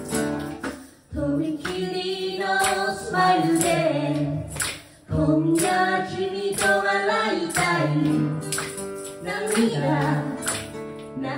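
Live acoustic pop song: a woman sings the lead with a man's voice joining in, over a strummed acoustic guitar and hand claps on the beat. The music drops away briefly about a second in and again about five seconds in.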